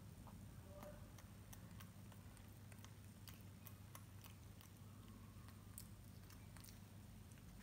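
Faint, scattered small clicks and smacks of a baby macaque eating cooked rice with its fingers, chewing and picking at the plate, over a low steady hum.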